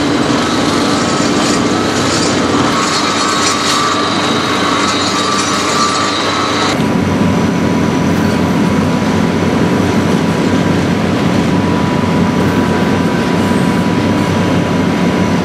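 Foundation-drilling rig machinery running: a loud, continuous mechanical din with a thin steady tone through it. The sound changes abruptly about seven seconds in.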